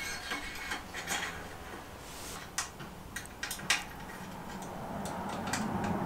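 Scattered light clicks and taps of a carbon handlebar being handled and seated in a bicycle stem clamp. A faint steady hum comes in near the end.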